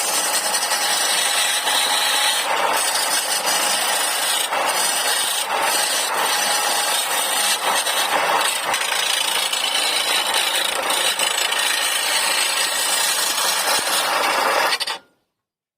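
Power tool cutting wood with a steady, dense scraping noise that cuts off suddenly near the end.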